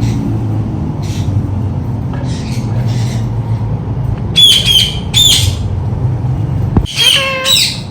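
Indian ringneck parakeet giving three short, harsh squawking calls about halfway through and near the end, over a steady low rumble.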